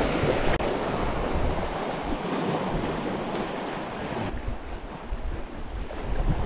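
Sea washing and foaming against rocks at the water's edge, with wind rumbling on the microphone; the hiss of the wash thins about four seconds in.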